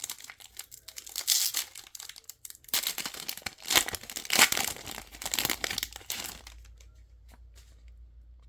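Plastic trading card pack wrapper being torn open and crinkled: a run of crackling tears, loudest in the middle, that dies away after about six seconds.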